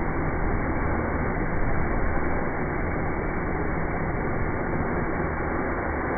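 Wood fire burning hard in a barbecue grill, a steady rushing roar without distinct crackles.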